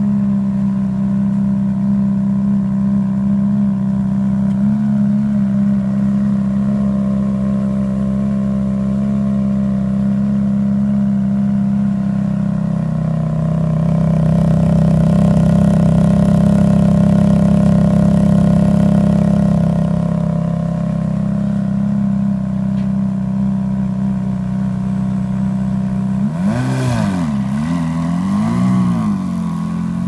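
Ferrari F430's V8 idling steadily through its twin pairs of exhaust tips just after start-up, then a few quick throttle blips near the end.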